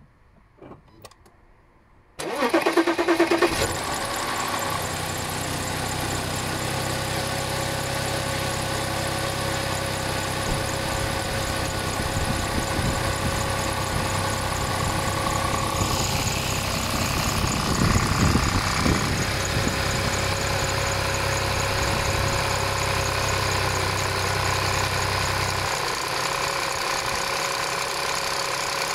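Audi A6 3.0 TFSI (CAJA) supercharged V6 starting from cold: a few soft clicks, a short crank and flare about two seconds in, then a steady cold idle. It carries the cold-start noise that the owner traces to the upper driver's-side cam chain tensioner. The low engine note drops a little near the end.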